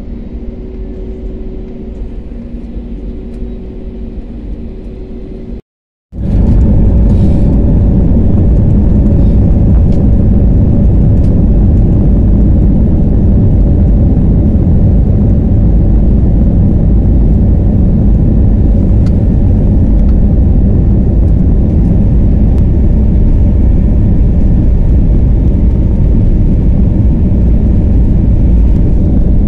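Jet airliner heard from inside the cabin: a steady engine hum with two held tones while the plane waits on the runway, then, after an abrupt cut about six seconds in, a much louder steady low roar of the engines at takeoff thrust with rumble through the cabin during the takeoff roll.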